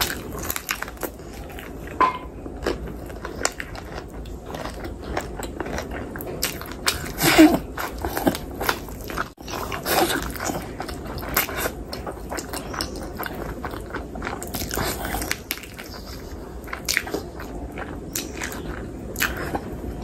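Close-miked eating: biting meat off a chicken drumstick in curry gravy and chewing it with wet, smacking mouth sounds. The loudest bite comes about seven seconds in.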